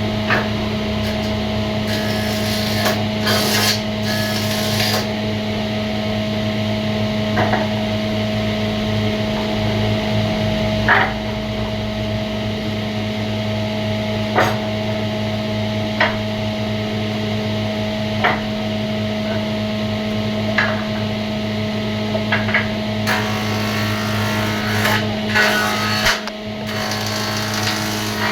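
Wood being worked by hand: scraping, rasp-like strokes and scattered sharp taps, over a steady machine hum.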